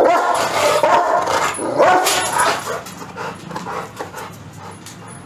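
A young male Rottweiler barking and whining, loudest over the first two seconds or so, then quieter and shorter.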